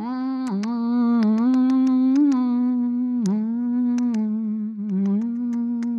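A woman's voice singing a long string of 'na-na' syllables on nearly one held note, the pitch dipping briefly a few times.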